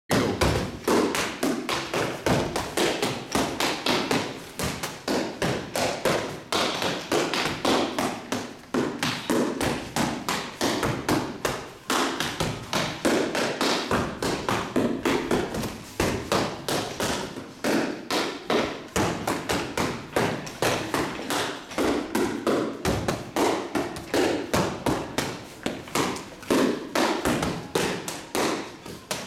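Rapid, continuous open-hand strikes on a training dummy's padded armour vest, several slaps and thuds a second with no pause, as two people hit it in turn.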